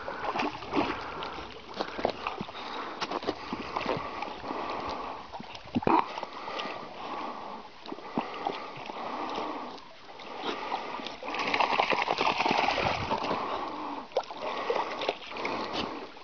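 A dog swimming, its paws paddling and splashing the water steadily, with a louder stretch of splashing about twelve seconds in.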